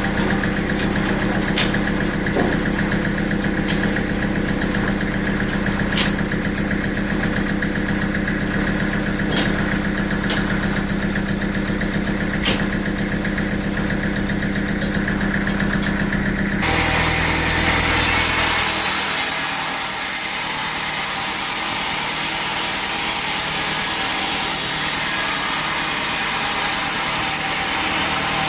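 Sawmill machinery running: a steady engine-like hum with a few sharp knocks, changing abruptly about two-thirds of the way through to a loud, even hissing noise without the hum.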